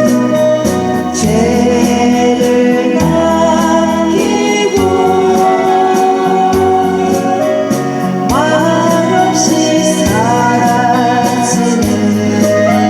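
A voice singing over a karaoke backing track of electronic organ-like keyboard with a steady beat.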